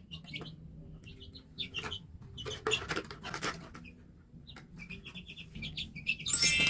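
Small birds chirping in short, repeated high notes, with a few sharp clicks or knocks in the middle. A louder, sudden sound comes in near the end.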